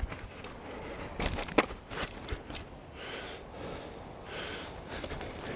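A few sharp clicks and knocks from the mountain bike being ridden, the loudest clack about a second and a half in, then two audible breaths from the rider.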